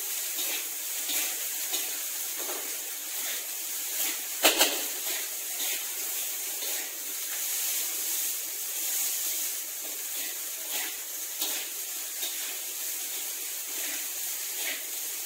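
Fried rice sizzling in a wok as a metal spatula stirs it, with short scrapes and taps of the spatula against the pan. There is one sharper knock about four and a half seconds in.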